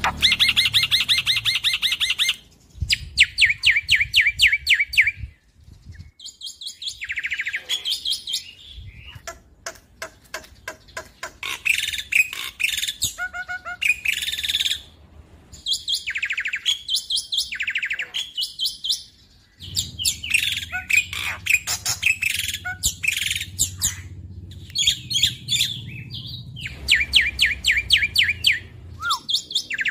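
Black-winged starling singing loudly in phrase after phrase, each a fast run of repeated ringing notes, with short pauses between.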